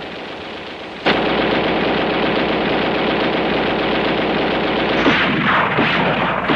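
Machine-gun fire, a dense, continuous rattle of rapid shots that starts abruptly about a second in and keeps on.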